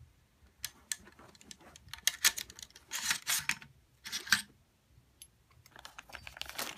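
Metal clicks and sliding scrapes as a nickel boron bolt carrier group is drawn out of the back of an AR-15 upper receiver. There are several sharp clicks, the loudest about two and four seconds in, and a rustle near the end.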